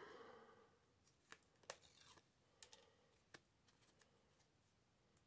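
Near silence with a handful of faint, sharp clicks and ticks from fingers handling small pieces of card and tape.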